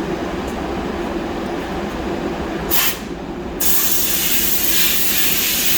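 Compressed-air blow gun blasting loose powder coating powder off a rod so it won't bake on in the oven: one short hiss of air about two and a half seconds in, then a long steady blast from a little past halfway. Under it, a steady mechanical drone with a low hum.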